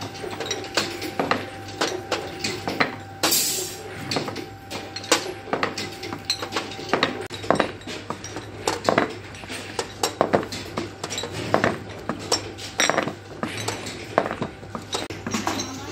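Irregular clinks and clacks of glass perfume bottles being handled and set against each other, mixed with knocks of a hinged wooden screen-printing frame, over a low steady hum.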